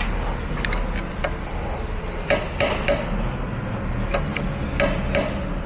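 Hand tools striking steel on a forklift hydraulic cylinder: about eight sharp metallic taps, irregular and some in quick groups of two or three, each with a brief ring.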